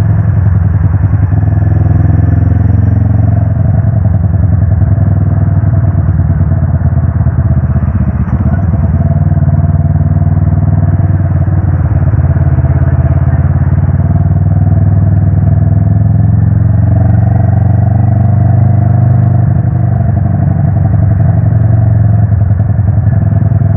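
Wind noise on the microphone while riding a motorcycle at speed, the engine running underneath: a loud, steady low rumble with a fast flutter.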